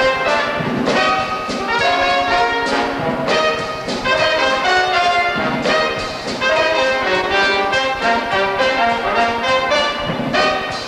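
Brass-led orchestra playing an upbeat show tune, with trumpets and trombones to the fore.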